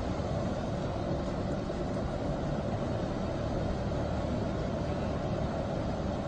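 Steady street background noise: a continuous hum and hiss with no distinct events.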